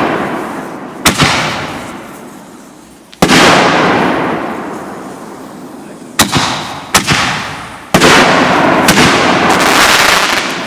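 Consumer fireworks going off: six sharp bangs spread unevenly, each trailing off in a noisy fade over a second or more, the second and fifth the biggest.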